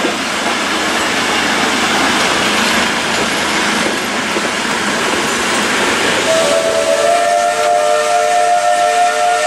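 Passenger carriages rolling past close by, a steady rush of wheel and rail noise. About six seconds in, the steam locomotive W 945's whistle starts up, a held chord of several tones that keeps sounding.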